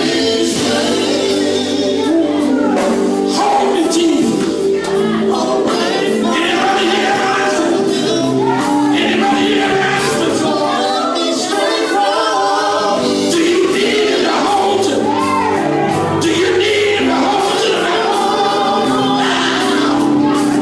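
Gospel group singing in harmony over live band accompaniment.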